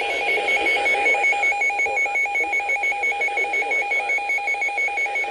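Electronic emergency alert tone: two pitches beeping together in rapid, even pulses over radio hiss, the alarm of a severe thunderstorm warning broadcast.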